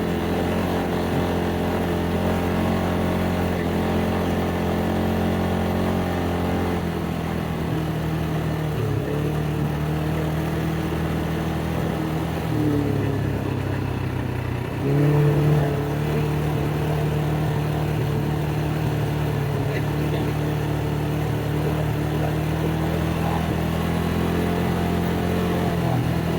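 ATV engine running under way, its note shifting down about seven seconds in, then dipping and picking up again with a short burst of revs a little past the middle.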